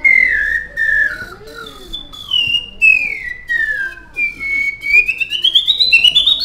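Plastic slide whistle blown in one long, slowly falling glide over about four seconds, with a few short breaks. It then climbs again in a wavering rise to a high note near the end.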